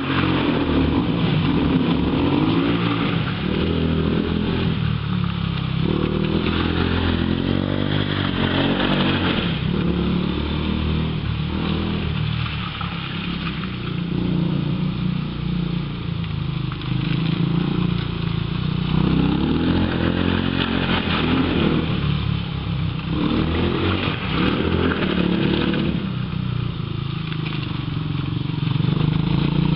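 ATV engine running hard and revving up and down over and over, its pitch rising and falling every few seconds as the quad is driven around a wet lot.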